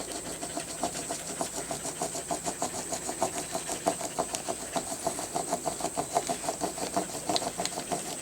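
Crayon rubbed rapidly back and forth on paper laid over a leaf, making a leaf rubbing: a steady, rhythmic scratching of many quick strokes a second.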